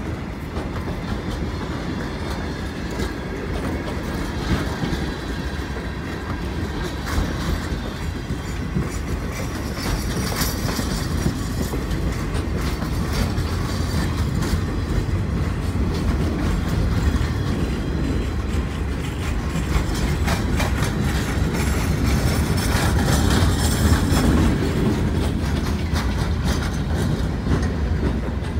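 Freight train cars, empty bulkhead flatcars and then boxcars, rolling past: a steady rumble of steel wheels on rail with clickety-clack over the joints and scattered clanks. It gets a little louder about three-quarters of the way through.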